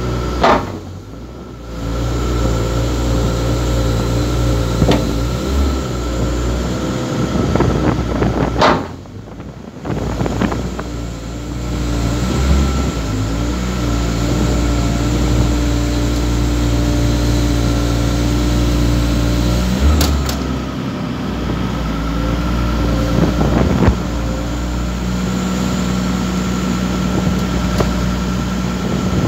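Diesel engine of the machine carrying a CAT clamshell grab runs steadily, with hydraulic whine as the grab is turned. The sound dips briefly about a second in and again about nine seconds in, and there are a couple of sharp knocks in the second half.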